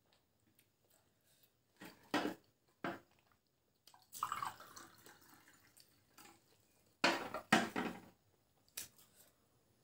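Water poured from a plastic jug into a glass about four seconds in, among scattered short mouth noises of eating and drinking.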